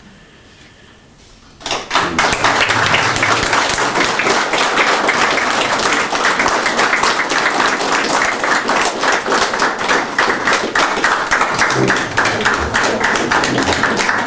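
An audience applauding: dense hand clapping starts suddenly about two seconds in and continues steadily.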